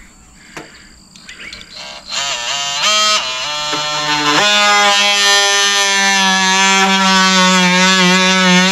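Oscillating multi-tool switching on about two seconds in and then running with a loud, steady buzzing whine whose pitch wavers slightly as it cuts into a wooden board.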